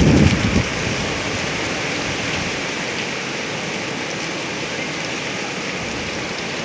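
Strong gusting wind, about 65 mph gusts, rushing steadily, with a brief low buffeting at the very start.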